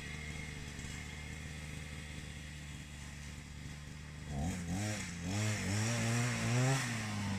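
Small vehicle's petrol engine idling steadily, then from about four seconds in revving unevenly as the throttle is worked on and off.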